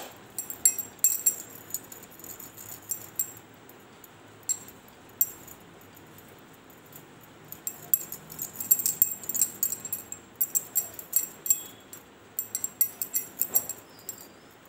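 Bangles on the wrist clinking against each other as hands roll dough between the palms. The clinking comes in quick, irregular runs, with a lull of a few seconds in the middle.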